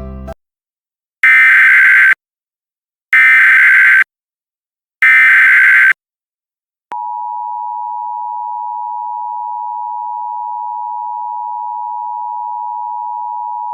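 Emergency Alert System broadcast signal. Three shrill bursts of the digital SAME header, each about a second long with a second's gap between them, are followed about seven seconds in by the steady two-tone EAS attention signal.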